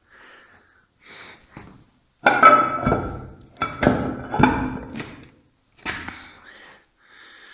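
Heavy steel gearbox parts of a Sipma Z224 baler, the main shaft with its tapered roller bearing and bevel ring gear, clunking as they are shifted by hand. There are about four loud metallic knocks, each with a short ring. Between them there are fainter handling scrapes.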